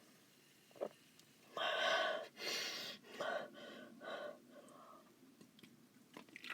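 A person gasping and breathing hard through the mouth between gulps of sparkling water, about five heavy breaths, the first two loudest and longest. A brief click comes just before them.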